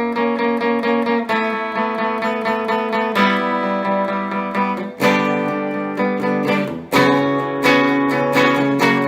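Epiphone Casino hollow-body electric guitar played clean through a VOX AC15C1X valve amp on its Top Boost channel, strumming a rhythmic chord progression with a fresh chord every second or two.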